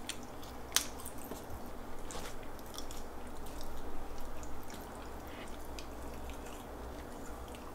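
Small wet clicks and squishes of a mini pain au chocolat being dipped into a cup of cream yogurt and bitten, with a sharp click about a second in and a busier patch of sounds around four seconds, over a low steady hum.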